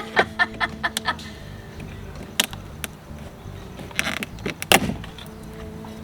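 Background music with sharp clicks and knocks of plastic door-trim pieces and tools being handled: a quick run of clicks in the first second, a couple of single ones, and a louder cluster about four to five seconds in.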